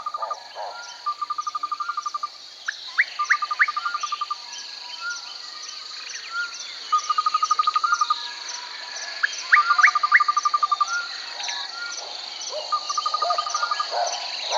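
Nature ambience of birds and insects: a steady high insect chorus, with a bird's short rattling trills repeating every couple of seconds and quick rising whistled calls in between.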